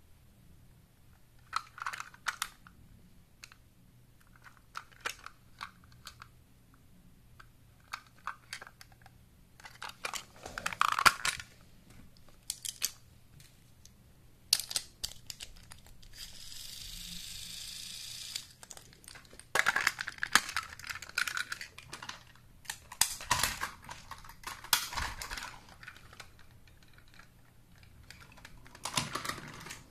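Plastic Plarail toy train cars handled by hand: irregular clicks and rattles as the cars are set on the plastic track and coupled together. A steady hiss lasts about two seconds midway.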